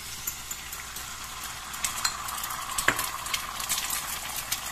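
Beaten egg sizzling and crackling in hot oil in a frying pan, with one sharper click about three seconds in.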